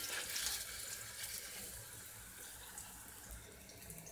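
Plantain slices frying in hot oil in a pan: a faint, steady crackling sizzle that slowly grows quieter.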